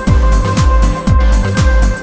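Electronic background music with a steady thumping beat.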